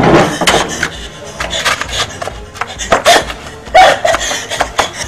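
Background music with irregular sharp percussive hits.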